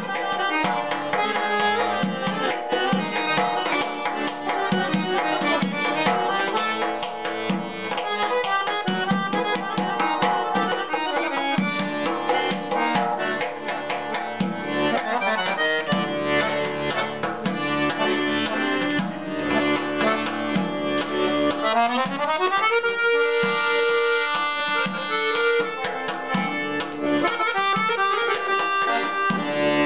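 Weltmeister piano accordion played solo: a fast folk melody on the keyboard over a rhythmic bass accompaniment. About 22 seconds in, a quick rising run leads into held chords.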